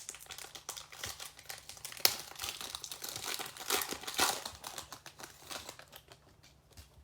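Crinkling plastic wrapper of a Contenders Hobby trading-card pack being handled and torn open, busiest and loudest in the middle with a sharp rip about two seconds in, then dying away.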